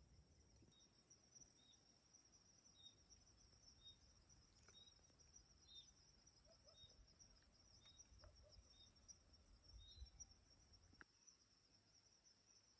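Faint insect chorus, crickets trilling steadily at a high pitch, with a short chirp repeating about every second from another animal. A low rumble underneath drops away about eleven seconds in.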